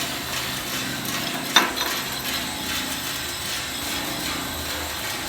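20 kg drum coffee roaster running, its rotating drum tumbling beans with a steady rustling rasp, at the yellowing stage before first crack. A single sharp knock about a second and a half in.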